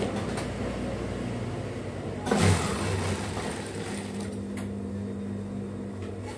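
Industrial sewing machine running, its motor giving a steady hum while stitching, with a brief louder surge about two and a half seconds in.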